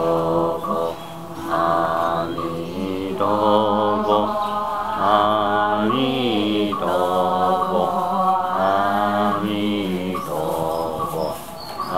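Voices chanting Buddhist liturgy for a life-release ritual: a melodic chant of long held notes that slide gently and break every second or two.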